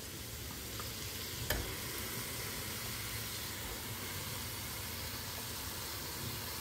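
Raw mutton pieces sizzling steadily as they go into hot oil and fried spices in a pressure cooker, with one short knock of the steel spatula about a second and a half in.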